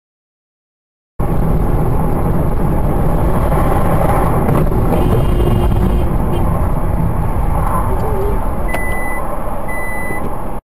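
Steady road and engine rumble inside a moving car, picked up by a dashcam, starting abruptly about a second in and stopping abruptly at the end. Near the end come two short high beeps about a second apart.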